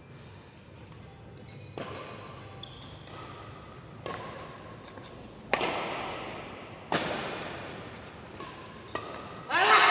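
Badminton rackets striking a shuttlecock in a doubles rally, sharp hits about every one to one and a half seconds that ring out in a large echoing hall; the loudest hit comes about halfway through. Voices break in near the end.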